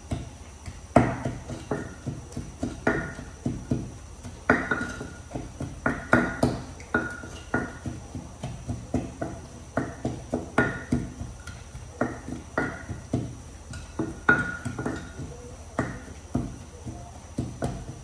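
Wooden pestle pounding in a mortar, grinding chili-paste ingredients for a tomato chili dip: a run of irregular strikes, about two a second, each with a short ring.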